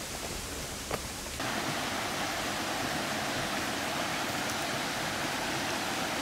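Raw outdoor sound from a camera's built-in microphone: a steady rushing hiss with one short click about a second in, stepping up louder about a second and a half in and then holding steady. It is the poor location sound that had to be recreated in post-production.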